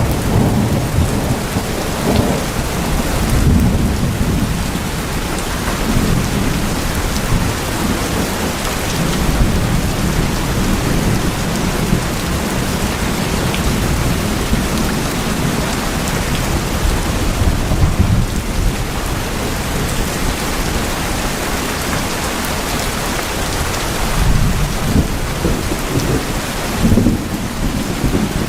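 Steady heavy rain falling on tin roofs, with thunder rumbling low underneath.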